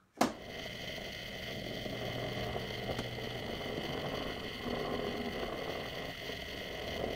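Small electric motor of a 3D-printed display turntable running steadily: a steady whine with a low hum, after a click near the start.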